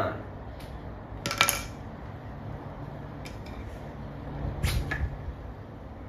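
Metal tire spoon clinking against a dirt bike wheel rim as the last section of the tire bead is levered on: a sharp clink about a second and a half in, then scattered clicks and a couple of thumps around five seconds in.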